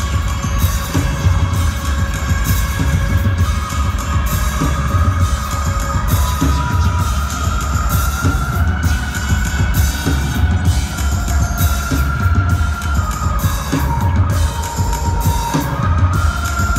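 Live band music, loud: a driving drum beat and deep bass under a held high line that slides up and down in pitch.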